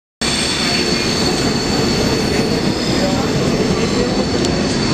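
Vintage electric streetcar running on rail, a loud steady rumble with a steady high-pitched whine over it, starting abruptly just after the start.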